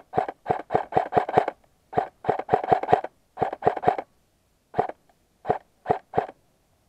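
Airsoft gun fired in quick single shots, about nineteen sharp cracks in runs of three to six with short pauses, spacing out to single shots near the end.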